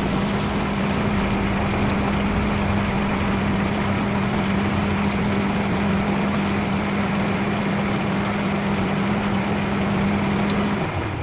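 Pentair IntelliPro 2 VST variable-speed pool pump running steadily at 2,000 RPM, a hum over a steady hiss. Near the end the hum drops lower as the pump changes to a slower programmed speed.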